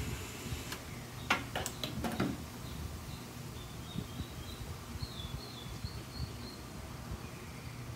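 A few sharp clicks and knocks from the plastic air fryer housing and a cordless screwdriver being handled, bunched about a second or two in. After them come faint, high, short bird chirps, over a low steady hum.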